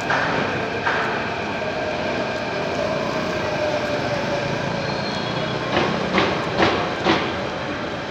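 Metro train running nearby: a steady rumble with a faint whine that slowly falls in pitch, and a handful of sharp knocks about six to seven seconds in.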